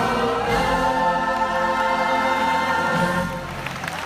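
A stage musical's chorus of singers and backing music holding a long final chord, which fades away about three and a half seconds in.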